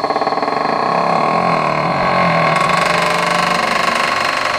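An engine or motor running steadily, with a low hum that rises a little in the middle.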